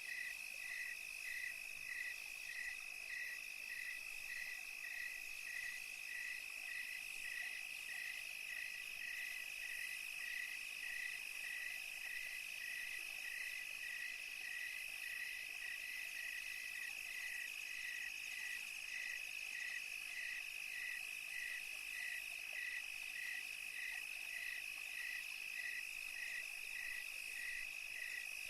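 Ambient chorus of chirping insects: a steady high trill with a regular chirp about twice a second, unchanging throughout.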